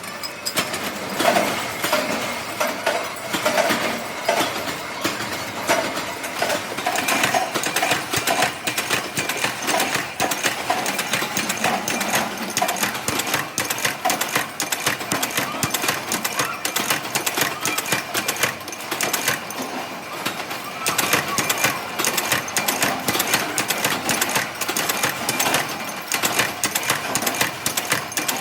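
Workshop machinery running with a fast, continuous mechanical clatter of closely spaced clicks and knocks.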